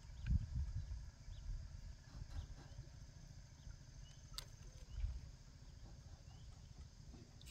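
Wind buffeting the microphone in irregular low gusts, strongest just after the start and about five seconds in, with faint scattered chirps and a single sharp click about four and a half seconds in.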